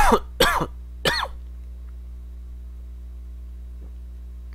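A man coughing three times in quick succession, each cough falling in pitch, then only a steady low electrical hum. He is unwell.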